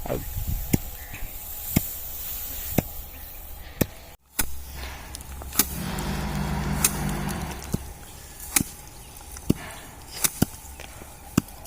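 Sickle cutting through dry wheat stalks by hand: sharp, crisp snaps about once a second, with a louder stretch of rustling in the middle.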